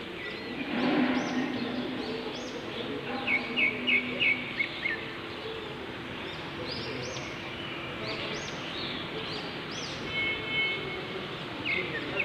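Small birds chirping again and again over a steady outdoor hiss, with a quick run of about five bright notes a few seconds in. About a second in, a brief louder rumble with a low hum rises and fades.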